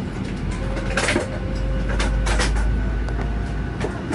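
Cabin noise of a Boeing 737-800 taxiing: a steady low rumble of engines and rolling wheels, with scattered knocks and rattles. The rumble swells about a second and a half in.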